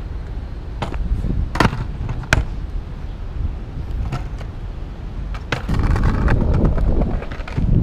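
Sharp clacks of a skateboard deck and tail striking stone paving, several spread through the first few seconds, over a low rumble. About six seconds in, the rumble of skateboard wheels rolling over the tiles grows louder.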